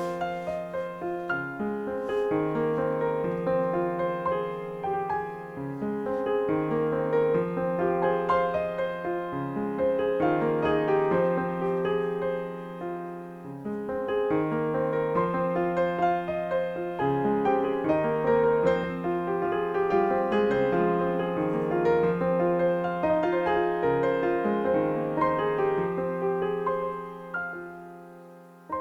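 Background piano music, a gentle melody of held notes that fades out near the end.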